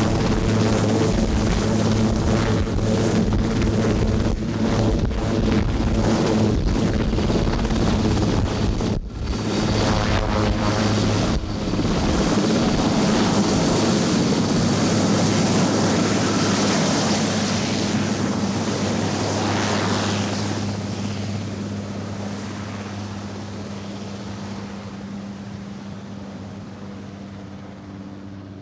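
Sikorsky VH-3D Sea King helicopter running at full power, its rotor beating under a high turbine whine, as it lifts off and climbs away. The sound fades steadily over the last ten seconds or so.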